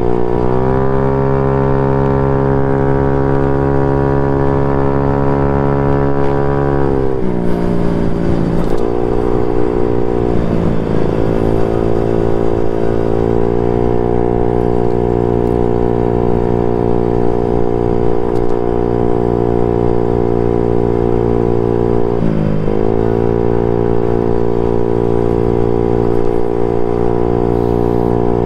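Modified Honda Ruckus scooter's engine running under way at a steady cruising note. The pitch drops as the scooter slows about seven seconds in, wavers, then climbs back to a steady cruise, with one more brief dip and recovery past the twenty-two-second mark.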